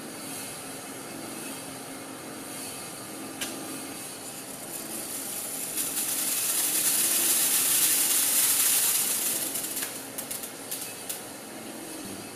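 Steel shot poured onto a test board and running down into a metal tray for a shape test: a hiss of many small pellets that swells about halfway through and fades, followed by a few scattered ticks.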